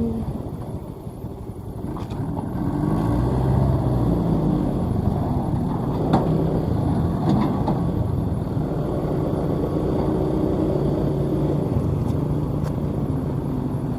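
Combine harvester's engine running as the machine travels, its pitch rising and falling at first, then holding steady, with a couple of sharp knocks or rattles around the middle.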